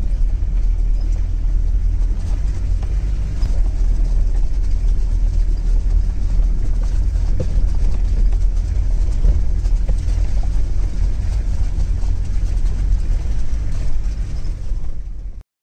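Steady low rumble of a vehicle's engine and tyres heard from inside the moving vehicle. It cuts off suddenly near the end.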